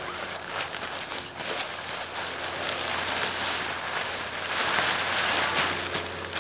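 Nylon tent fabric rustling and crinkling as a folded pop-up tent is pulled from its bag and shaken open, loudest about two-thirds of the way through.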